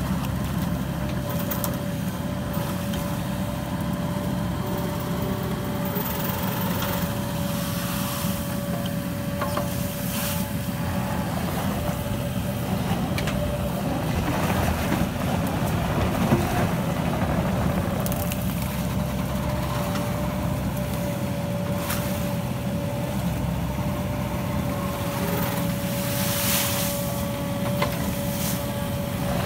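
Cat 308E mini excavator's diesel engine running steadily under load with a steady high whine, as its hydraulic mowing bucket cuts grass and weeds on a ditch bank, with scattered crackling from the cutting.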